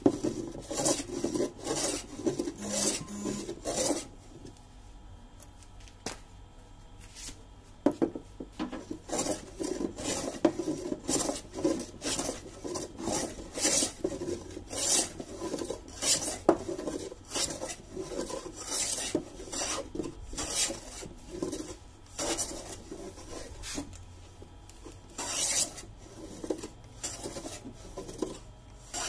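A wooden hand block being scraped back and forth along an old, weathered wooden plank, with rhythmic rasping strokes about one to two a second. The strokes pause for a few seconds about four seconds in, then resume.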